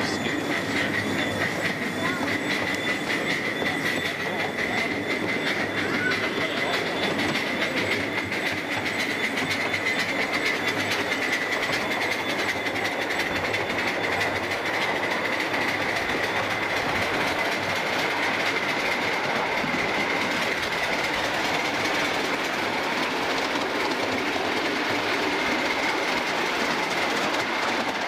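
Miniature ride-on railway train running along the track, its wheels clattering over the rails, with a steady high whine throughout.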